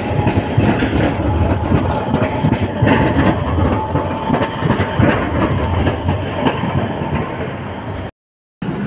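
Articulated low-floor tram passing close by, its wheels rumbling steadily on the street rails with small knocks and a faint steady whine. The sound cuts out for about half a second near the end.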